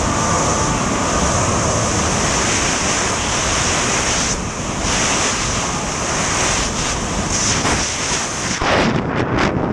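Rushing airflow of skydiving freefall blasting across a camera's microphone as a loud, steady roar of wind noise, which turns choppy and gusty near the end.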